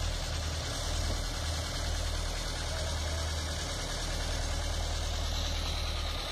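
Tractor engine idling, a low steady running.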